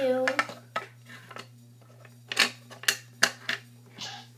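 Littlest Pet Shop plastic toy figures and accessories clicking and clattering against a tabletop in several sharp taps as they are handled.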